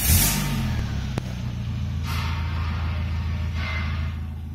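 Renault Clio II's 1.6-litre K7M745 eight-valve petrol engine catching from the starter with a brief flare in revs, then settling into a steady idle at about 1000 rpm. A single sharp click about a second in.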